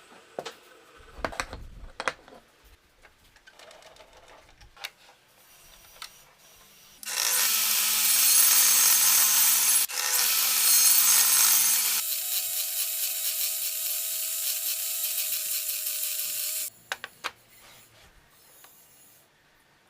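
A power tool in woodworking runs for about ten seconds, starting about seven seconds in, with a brief break partway through and a change to a higher steady pitch, then cuts off suddenly. Before and after it come scattered knocks and taps.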